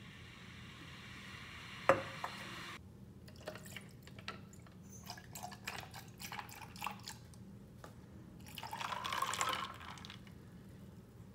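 Liquid dripping and splashing, with a sharp click about two seconds in and a louder splashing swell near the end.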